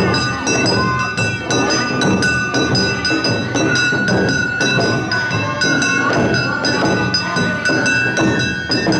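Awa Odori narimono band playing: a small kane gong clanks and drums beat a quick, steady rhythm, while a bamboo flute holds high notes over them.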